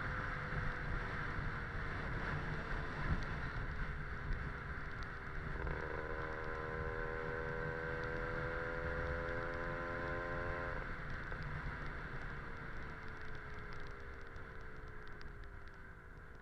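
Two-stroke Lambretta scooter with a Casa Performance SSR265 kit, heard on the move under heavy wind noise on the microphone. The engine note grows stronger and steady for about five seconds in the middle, then sinks slowly in pitch as the scooter slows.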